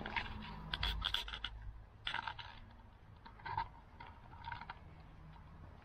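Faint scrapes and scuffs: a cluster of quick scratchy clicks in the first second and a half, then a few short single scuffs about a second apart.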